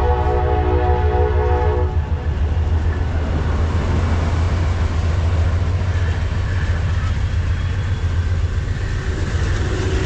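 Amtrak Coast Starlight departing: a locomotive horn chord that cuts off about two seconds in, over the steady low rumble of the train rolling past.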